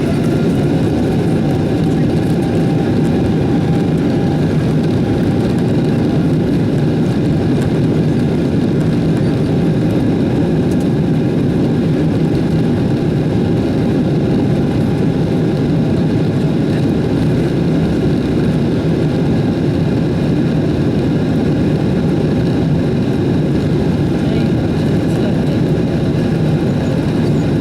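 Boeing 777-200ER's twin jet engines at high power, heard inside the passenger cabin as a loud, steady rumble and rush, with a whining tone that rises in pitch over the first couple of seconds and then holds.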